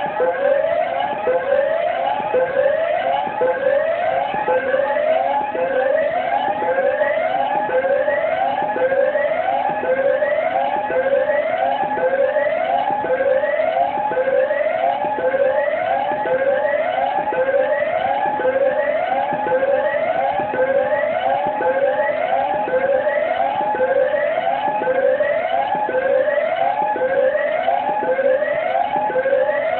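Power plant fire alarm sounding continuously: an electronic sweep tone that rises, cuts off and starts again over and over, with a steady low hum beneath it.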